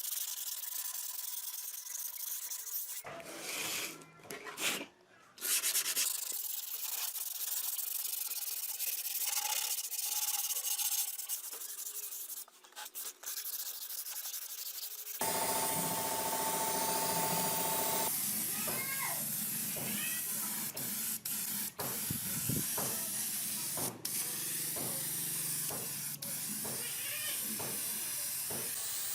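Sandpaper rubbing over the old speaker cabinet: a steady scratchy sanding noise, broken twice by short pauses. About halfway it gives way to a short steady tone, then scattered clicks and small chirps.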